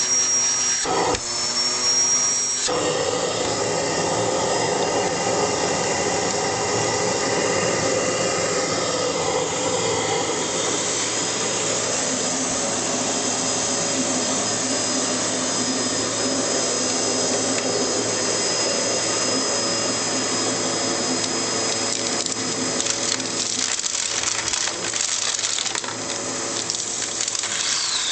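Hoover Pure Power bagless vacuum cleaner running steadily. A high thin whine over the suction noise stops about two and a half seconds in, and the noise then changes and runs on evenly.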